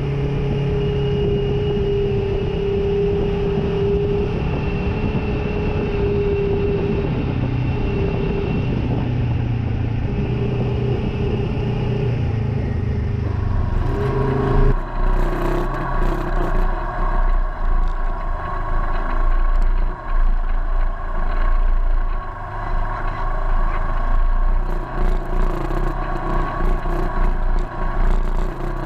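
Polaris RZR side-by-side's twin-cylinder engine running at a steady speed while driving a dirt trail. About halfway through the sound changes and becomes more uneven, rising and falling with scattered knocks.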